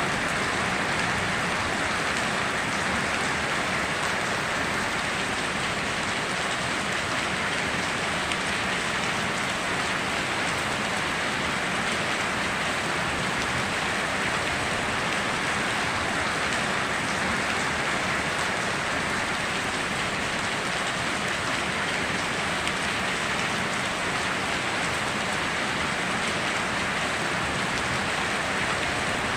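Steady heavy rain falling on surfaces, an even dense patter with no thunder claps.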